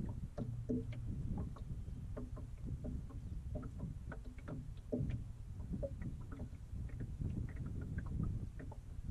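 Small waves lapping and slapping irregularly against the side of an aluminium boat, over a steady low rumble.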